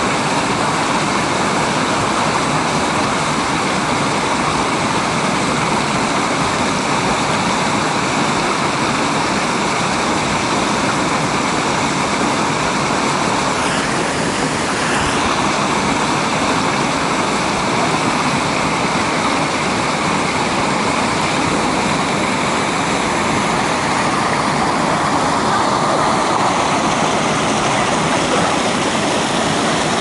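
Small waterfall pouring over granite boulders into a rock pool: a steady, loud rush of falling water.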